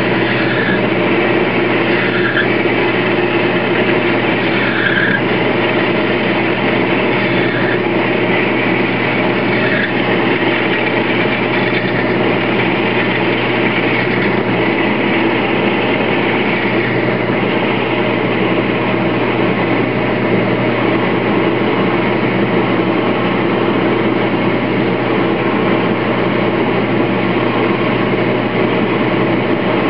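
Small metal lathe running steadily, its motor and gearing making a constant hum, while a 3/8-inch twist drill fed from the tailstock bores into the spinning metal bar. A few brief higher-pitched cutting sounds come in the first ten seconds.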